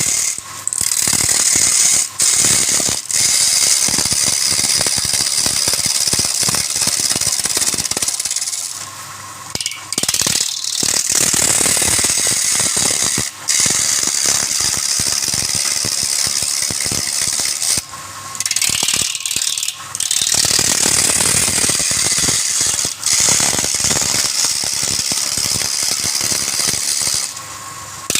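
Wood lathe with a turning tool cutting into the spinning wood: a steady high hiss with rapid chattering clicks. It comes in long passes, broken by short pauses about a third and two-thirds of the way through and again just before the end.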